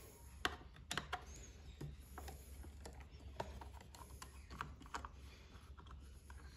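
Faint, scattered small clicks and scrapes of a screwdriver working at the plastic primer cap on a two-stroke lawn mower's carburettor, prying the cap off, over a low steady hum.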